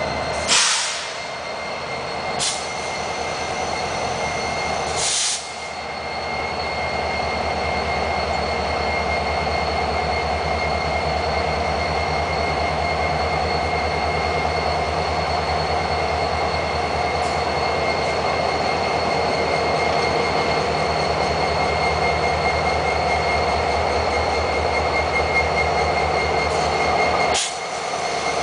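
Union Pacific EMD SD70ACe diesel locomotives, 16-cylinder two-stroke 710 engines, throttling up as a freight train pulls past, the engine rumble growing louder over the first ten seconds or so and then holding. A steady high whine sits over the engines, and a few short bursts of hiss come near the start, about five seconds in and near the end.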